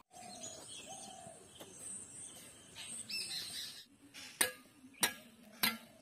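Faint bird chirps, then, about four seconds in, a stone striking another stone in sharp, evenly spaced knocks about every 0.6 s, five in all, breaking off small pieces of laterite rock.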